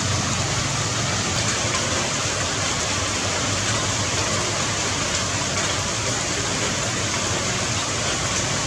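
Steady, even hiss of water noise with no distinct events.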